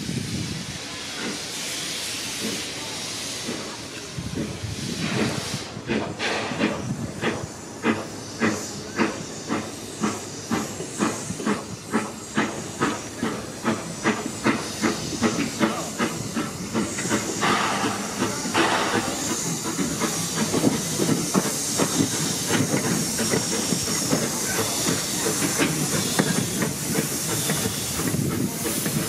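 Steam locomotive working, with a steady hiss of steam and, from about six seconds in, exhaust chuffs at about two beats a second. A louder gush of steam comes a little past the middle.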